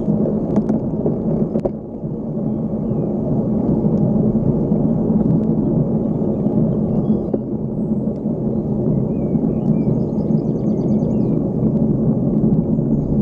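Wind buffeting the microphone of a handlebar-mounted camera on a moving bicycle, a steady low rumble that dips briefly about two seconds in.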